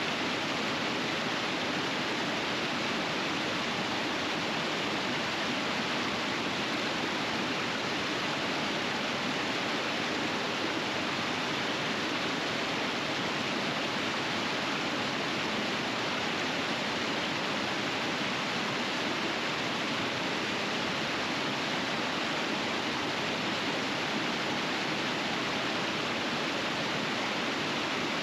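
Rapids of a winter river, water rushing steadily and unchanging.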